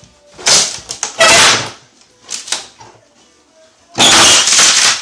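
Old wooden kitchen wall cabinet cracking and breaking as it is pulled off the wall by hand: two sharp bursts in the first second and a half, a smaller one soon after, then a longer loud one about four seconds in. It is the sound of destruction.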